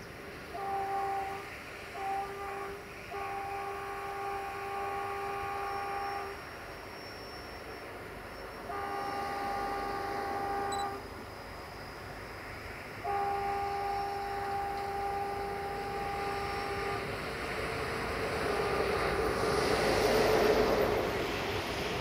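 Horn of an LDE2100 (class 060-DA) diesel-electric locomotive: two short toots, then three long blasts, each a single steady tone. After the last blast a rumble from the approaching locomotive grows louder, peaking near the end.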